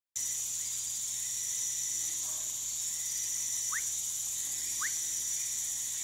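Two short rising whistles of a woodcock frog (whistling frog, Leptodactylus fuscus), a little over a second apart, over a steady high-pitched insect chorus.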